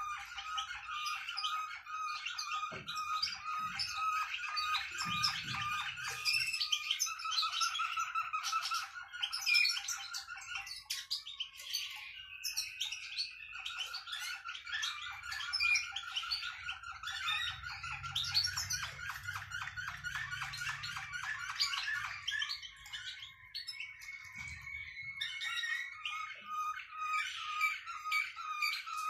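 Caged songbird singing a long, continuous song of rapid trills and rolls mixed with steady, held flute-like tones. The song thins out briefly twice before picking up again.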